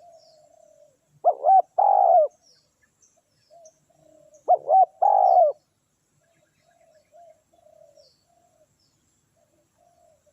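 Spotted dove cooing: two loud phrases about three seconds apart, each two short notes followed by a longer coo, with softer coos continuing between them.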